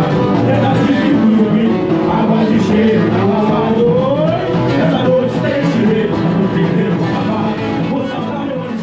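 Samba music over a sound-truck PA: singing with strummed guitar-type strings, with one voice or instrument sliding upward about four seconds in, and the whole beginning to fade out near the end.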